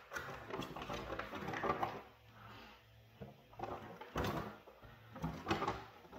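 Plastic collectible blind-bag packet crinkling and rustling as it is handled and opened, with sharp crackles about four seconds in and again near the end as its folded paper leaflet comes out and is unfolded.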